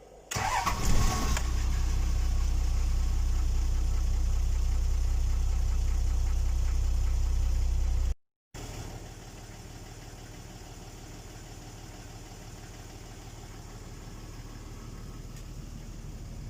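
Toyota Land Cruiser 60 engine cranked and catching within about a second, then idling steadily. After a brief dropout about eight seconds in, it is heard running on, much quieter.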